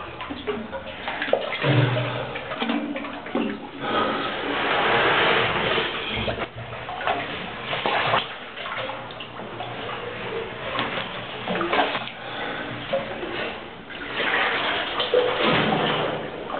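Water splashing and sloshing as a person swims and wades through a flooded cave passage, in uneven surges that are loudest about four seconds in and again near the end.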